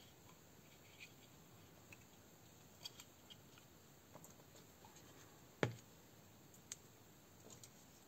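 Scattered small plastic clicks and taps from handling the parts of a disassembled electric airsoft pistol on a rubber work mat, with one louder knock a little past halfway.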